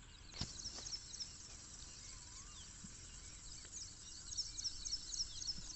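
Rural outdoor ambience with small birds chirping: quick runs of short high chirps, busiest about half a second in and again over the last second and a half. A single sharp click about half a second in.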